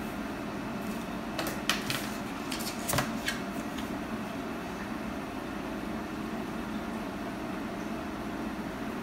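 Steady low room hum with a few light clicks and taps in the first few seconds.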